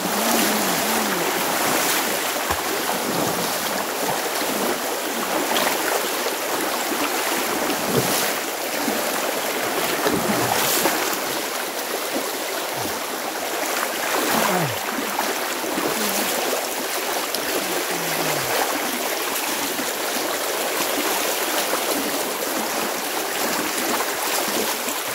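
Fast-flowing creek in flood after heavy rain, its muddy current rushing steadily.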